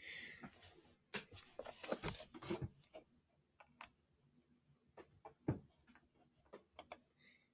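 Faint, irregular clicks and taps of a laptop being operated: a quick cluster in the first few seconds, then single clicks spaced out.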